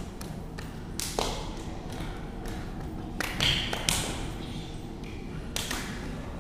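Hands and bodies thumping, tapping and sliding on a wooden stage floor, in scattered irregular knocks with a few short hissing swishes.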